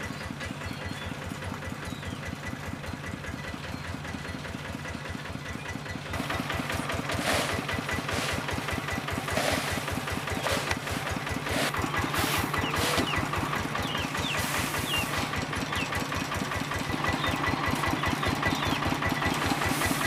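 Small farm-tractor engine idling with a steady, rapid chugging beat. About six seconds in it gets louder, and a hissy noise comes in over it.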